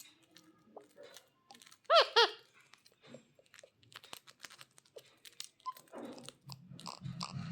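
Indian ringneck parakeet giving two short squawks about two seconds in, amid scattered small crunching clicks.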